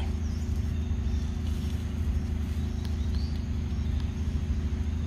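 A steady low rumble and hum, with a few faint high bird chirps and small clicks over it.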